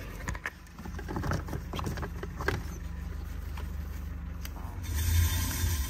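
Side-by-side utility vehicle's engine idling steadily, with scattered light clicks and knocks of things being handled in the cab. About five seconds in, a louder rush of noise swells briefly.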